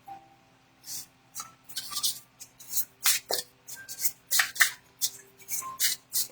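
A deck of Wild Unknown Animal Spirit oracle cards being shuffled by hand: quick, irregular rustles and snaps of the cards, thickening from about two seconds in.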